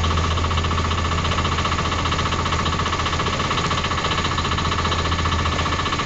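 Petter-Westerbeke marine diesel idling in neutral, a steady, even knocking run.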